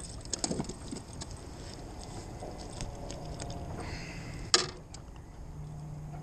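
Scattered small clicks and taps of a caught inshore lizardfish being handled and unhooked in a small boat, with one sharp knock about four and a half seconds in. A low steady hum comes in near the end.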